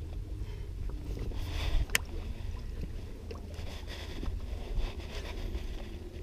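Wind rumbling on the camera microphone, a steady low noise, with a sharp click about two seconds in and light handling rustles.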